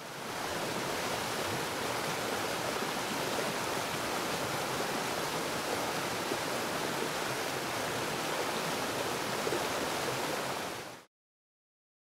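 Waterfall: a steady rush of falling water that fades in at the start and cuts off abruptly near the end.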